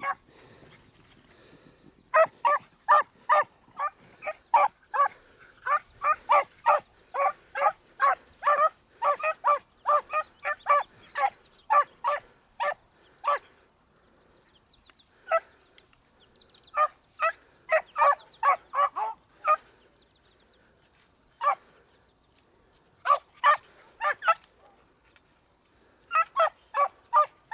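Beagles baying on a rabbit track: short barks coming in quick runs of two or three a second, then thinning to scattered groups of barks with gaps between.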